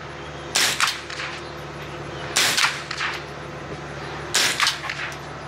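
Three rifle shots from an AR-15-style rifle, about two seconds apart at a steady pace, each a sharp crack followed closely by a weaker second crack.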